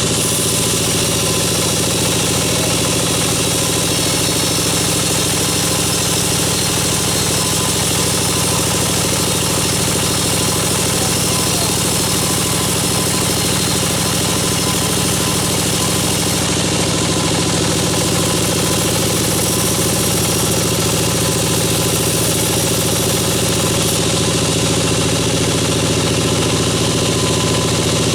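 Band sawmill machinery running steadily: a constant machine drone with a hiss over it, unchanging throughout.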